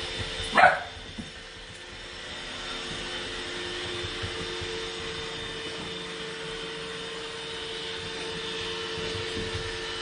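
Roomba robot vacuum running steadily, a motor hum with a steady whine. About half a second in, one short, sharp, loud sound cuts in over it.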